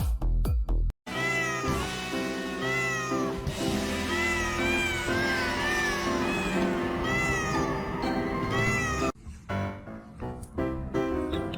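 Kitten mewing again and again in short, high, rising-and-falling calls over background music. The music changes abruptly at a cut about nine seconds in, where the mewing stops.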